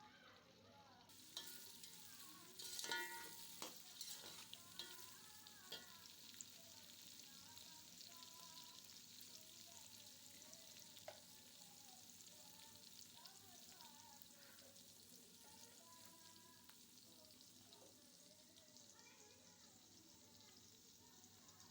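Food sizzling in hot oil in a cooking pot, starting about a second in and running steadily. Several sharp clanks of a utensil against the pot come around three seconds in as it is stirred.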